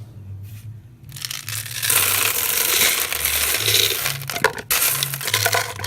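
Plastic packaging crinkling and crackling as a candy-filled surprise container is opened by hand, a dense run of crackles beginning about two seconds in.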